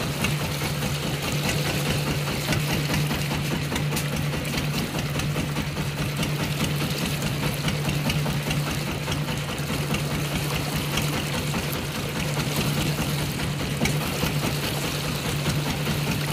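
Fishing boat's engine running at a steady speed, a constant low hum with a fast, even chugging, over a steady hiss.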